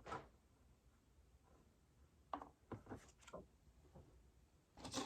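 Faint, scattered taps and clicks of paper pieces and small craft parts being handled on a work surface, against near silence.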